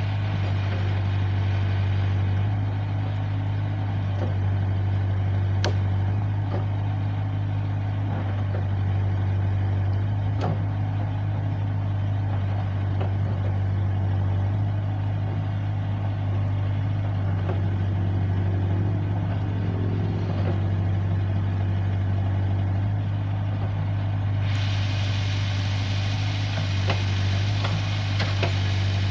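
Diesel engine of a JCB 3CX backhoe loader running steadily at low revs, with a few faint clicks.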